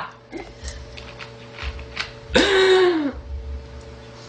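A small girl burping once, a single loud belch about three quarters of a second long, a little past halfway, its pitch sagging downward as it ends.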